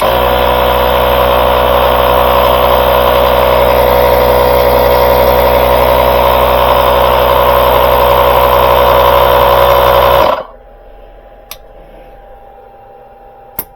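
Small 12V air compressor built into a UTRAI Jstar 5 jump starter running steadily while inflating a tire, then shutting off abruptly about ten seconds in.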